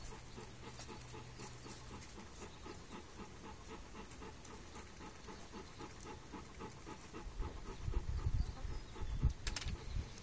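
A dog panting softly in a quick, even rhythm. A few low thuds come in near the end.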